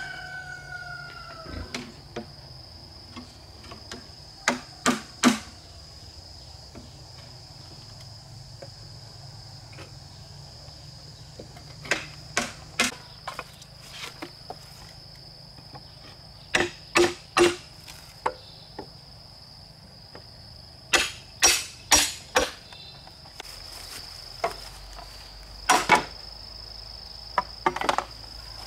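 Sharp blows of a hand tool on wood come in quick bursts of two to four, a few seconds apart. A steady high-pitched insect trill runs underneath.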